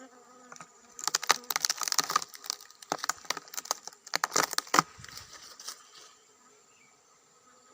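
Dry plant material crackling and snapping in irregular bursts as it is broken away at the hole holding a wild honeybee nest. The crackling comes in clusters during the first five seconds and dies away near the end.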